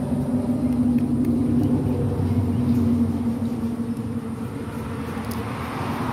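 A motor vehicle engine running with a steady low hum, and a rush of noise swelling near the end.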